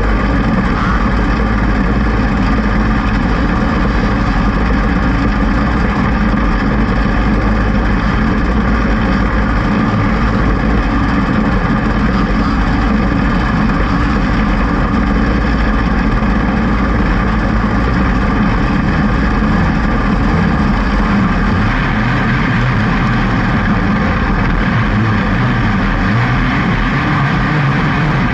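Open 500-class winged kart's engine running steadily at close range from the onboard camera, with no big revs, over the engines of other karts nearby.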